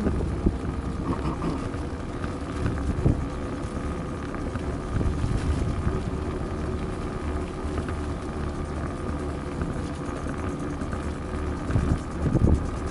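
Wind buffeting the microphone of a moving ride, a steady low rumble with a faint steady hum under it. A few knocks stand out, about three seconds in and again near the end.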